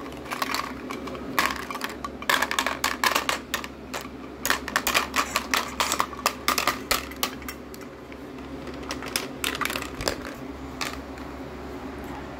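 Plastic play-dough tools and cutters clicking and clattering against each other and a plastic tray as they are handled. The clicks come thick and fast through most of the first seven seconds, then only now and then.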